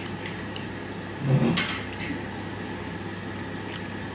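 Mouth and hand noises of a man eating braised pork knuckle with his hands: faint wet clicks of chewing and handling the meat, and one brief louder low sound about a second in, over a steady low hum.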